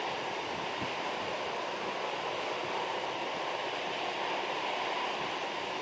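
Airbus A330-300 jet engines running at taxi power: a steady, even rushing hiss with no rise or fall.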